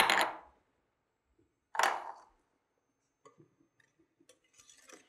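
A fine-mesh metal sieve shaken over a mixing bowl to sift cornstarch and flour onto egg batter. There are two short strokes of sifting about two seconds apart, then a few faint light clicks.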